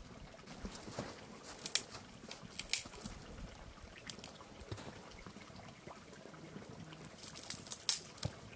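Water trickling and splashing, with a few sharp clicks about two seconds in and a cluster of them near the end.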